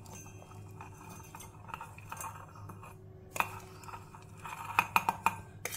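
A steel spoon scraping and clinking against a stainless-steel bowl and a mixer-grinder jar as roasted masala is spooned from one into the other. The strikes are soft at first, then come as a few sharp clinks in the second half.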